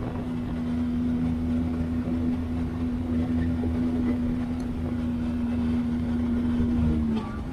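Can-Am Maverick R side-by-side's engine running at a steady speed, a steady drone that drops away near the end.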